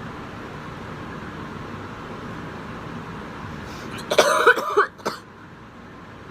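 A young woman coughing: a quick run of several coughs about four seconds in, then one more short cough, over a steady background hiss.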